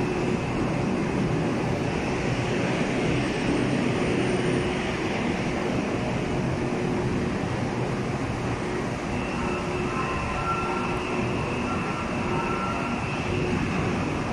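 Bangkok MRT Yellow Line Alstom monorail train standing at the platform behind glass screen doors, running with a steady mechanical noise. About two-thirds of the way through, a faint high whine joins in.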